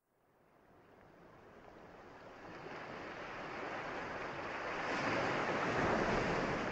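Ocean surf washing on a beach as a steady rush, fading in from silence and swelling over the first five seconds.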